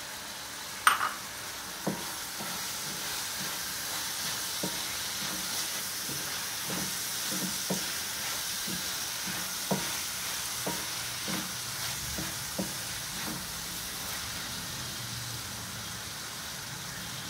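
Onions and green chillies sizzling in hot oil in a pan while being stirred, with a spoon knocking against the pan now and then and one sharp clink about a second in.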